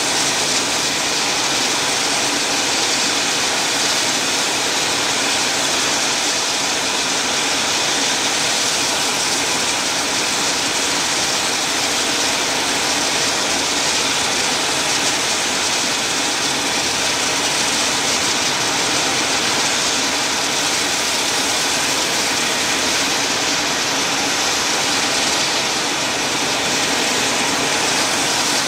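AH-64D Apache attack helicopters running on the ground: a steady, unchanging turbine rush with a faint whine.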